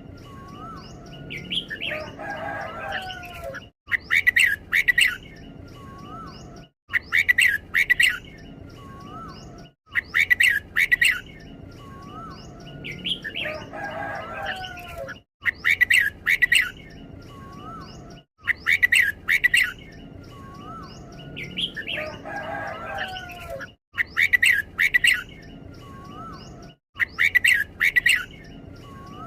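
Red-whiskered bulbul singing: loud clusters of short, bright notes repeat every few seconds, with softer gliding calls in between.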